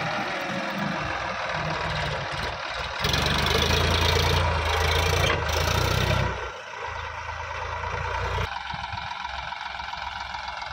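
Sonalika tractor's diesel engine running while pulling a trailer loaded with soil. About three seconds in it gets louder under load for a few seconds, then eases back to a quieter, steady running.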